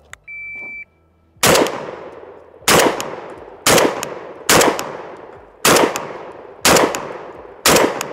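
A short high beep, then a semi-automatic Beretta A300 Ultima Patrol 12-gauge shotgun firing seven rapid shots about a second apart with light birdshot trap loads, cycling without a hitch.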